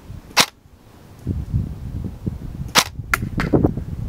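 G&G SCAR-L airsoft electric rifle firing single shots: one sharp crack about half a second in, then two close together near the end. Wind buffets the microphone underneath.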